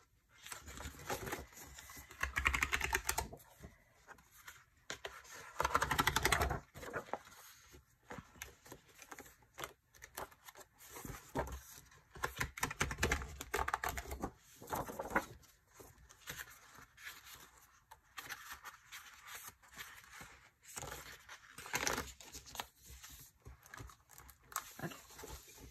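Discbound planner pages of thick paper being pulled off their discs a few at a time: repeated snapping clicks and paper rustling, with louder bursts every few seconds.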